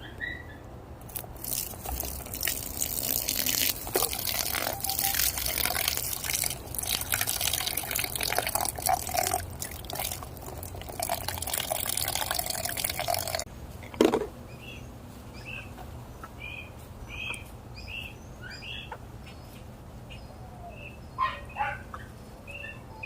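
Water pouring and splashing for about thirteen seconds, then stopping suddenly, followed by one sharp knock. After that come short, high chirps from the chickens.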